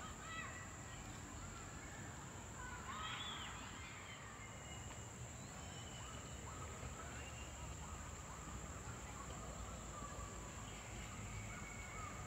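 Outdoor ambience: a steady high-pitched insect drone, with scattered short bird chirps and a faint low rumble underneath.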